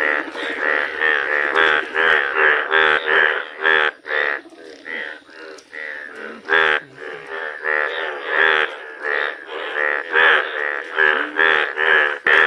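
A chorus of frogs croaking: overlapping, rasping pulsed calls come about two a second. They thin out and go quieter for a few seconds near the middle, then build back up.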